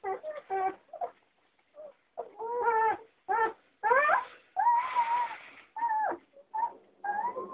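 Doberman puppies whining and yelping: a rapid string of short high-pitched cries, with one longer, rougher whine about five seconds in.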